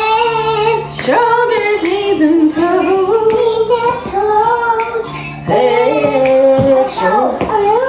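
A young girl singing a tune, holding high notes and sliding between them.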